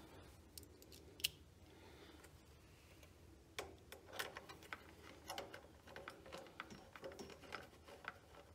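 Faint, scattered clicks and taps of small nuts and fingers against a plastic air-cleaner housing as the nuts are threaded by hand onto their studs: one sharp click about a second in, then a string of small clicks from about halfway.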